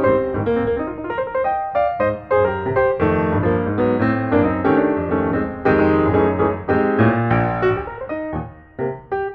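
Background piano music: a solo piano playing a melody over chords, with notes struck in quick succession. It thins out briefly near the end.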